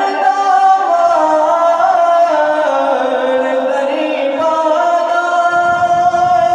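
A man singing a Punjabi naat unaccompanied, drawing out a long line in slow melismatic turns of pitch.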